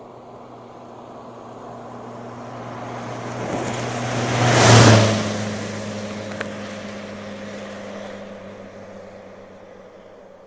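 A car passing by fast: it builds from a distance, goes by close about five seconds in with a short rush, and its engine note drops in pitch as it passes before fading away.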